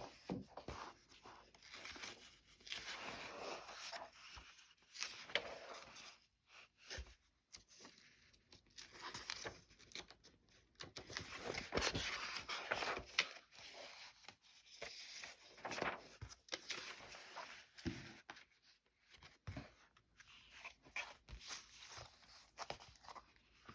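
Paper rustling and crinkling as vintage paper doll books and sheets are handled and their pages turned, in irregular spells with a few light taps.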